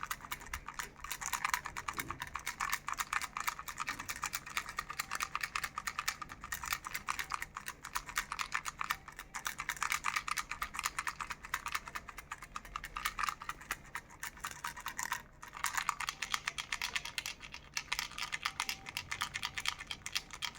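Plastic Hello Kitty telephone baby rattle being shaken continuously: a dense, rapid clatter of the loose pieces inside, with a brief break about fifteen seconds in.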